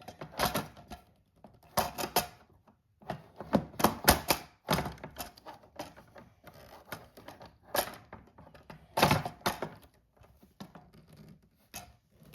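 Plastic parts of a toy barn clicking and knocking together in irregular sharp clacks as a side wall is worked into its slot, with the loudest knocks about four and nine seconds in.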